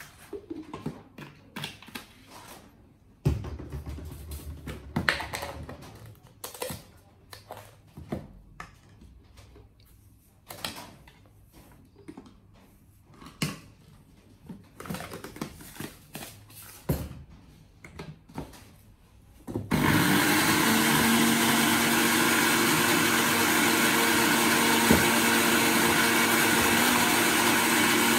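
Scattered clicks and knocks of things being handled, then about two-thirds of the way through an electric blender switches on and runs steadily, blending fruit into juice.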